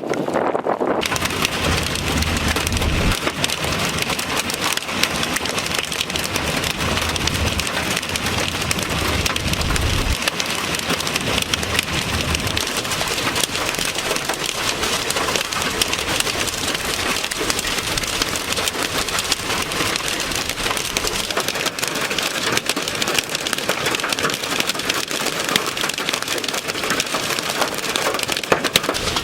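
Heavy rain pelting steadily, a dense hiss of countless drops striking a surface, with a low rumble underneath for about the first ten seconds.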